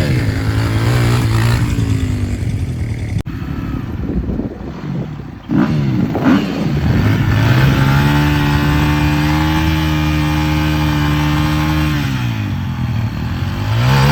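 Small engine revving. It climbs about six seconds in, holds a steady high pitch for several seconds, drops back to idle, then revs up again near the end.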